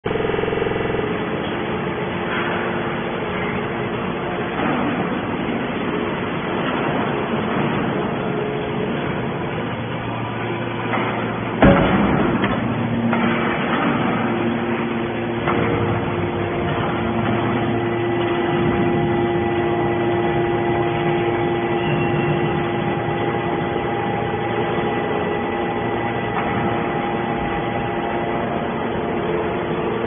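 Hydraulic scrap-metal baler running: a steady machine hum from its hydraulic power unit with several held tones, and one loud metal bang about twelve seconds in.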